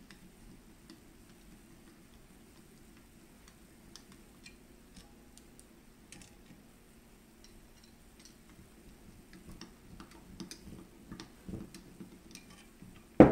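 Faint, scattered small metal clicks and ticks of pliers working a spring compressor tool on a shotgun receiver, growing more frequent toward the end, then one loud knock just before the end.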